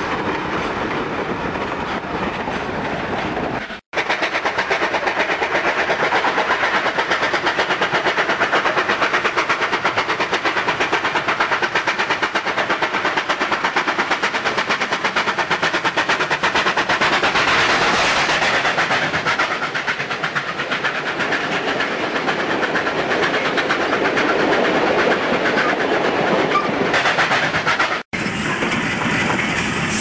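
Steam locomotive chuffing in a fast, even beat. It cuts out briefly twice, about four seconds in and again near the end.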